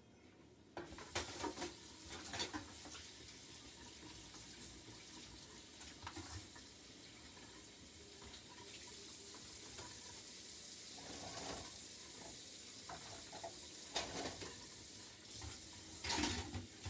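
Kitchen faucet running into a stainless-steel sink as dishes are washed, with a few clatters of dishware about a second in and again near the end. The water gets louder about halfway through.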